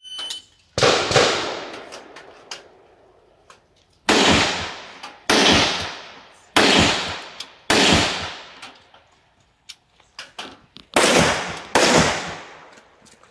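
A brief electronic beep, then about seven gunshots at uneven gaps from a shooter running a practical-shooting (IPSC) stage, each with a long echoing decay. The beep is the shot timer's start signal.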